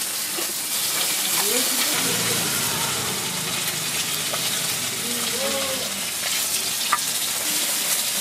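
A steady hiss, with faint voices in the background.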